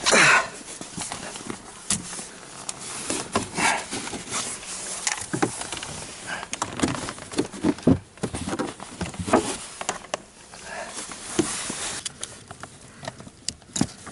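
Hands working plastic dashboard trim and wiring under a car's dash: irregular clicks, knocks and rustling, beginning with a loud burst of handling noise.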